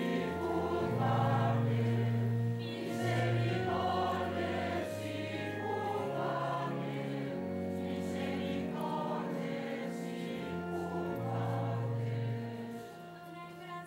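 A choir singing a slow hymn over held low accompaniment notes, growing a little quieter near the end.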